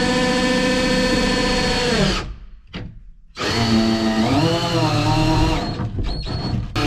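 Power drill driving screws into the wooden frame. It runs in spurts: a whine for about two seconds that winds down, a pause, a longer run whose pitch dips and rises under load, and a short burst near the end.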